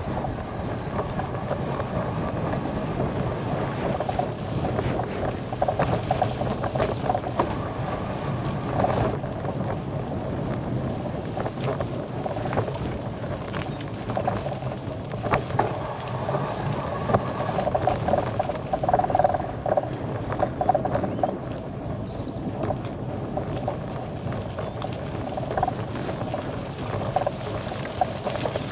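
Bicycle riding along a paved road: steady tyre and wind noise on the microphone, with scattered small clicks and rattles.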